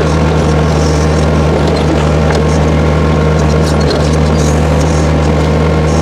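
Case 1845C skid steer's diesel engine running steadily under load, driving a John Deere 900 backhoe attachment through its auxiliary hydraulics as the boom and bucket dig. A single click sounds about four seconds in.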